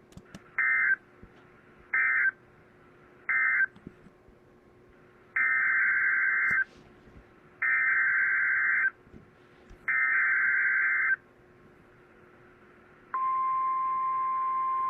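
NOAA Weather Radio alert data tones: three short, harsh buzzing bursts of the SAME end-of-message code, then three longer bursts of a SAME header announcing the next warning. About thirteen seconds in, the steady single-pitched 1050 Hz weather radio warning alarm tone begins.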